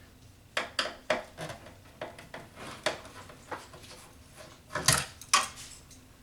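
Scattered clicks and light metallic clinks of a screwdriver and small screws being handled while screws are taken out of a Bose Acoustimass 6 Series III subwoofer's amplifier panel, with two louder knocks about five seconds in.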